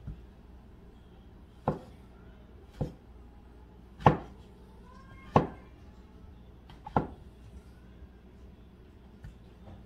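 Kitchen knife slicing through button mushrooms and knocking on a plastic cutting board: five sharp chops, each one to one and a half seconds apart.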